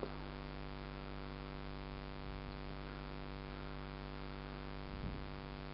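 A steady electrical hum with a faint static hiss under it.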